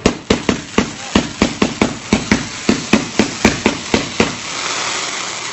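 Fireworks going off: a rapid series of sharp bangs, about four a second. About four seconds in the bangs stop and a steady hiss takes over.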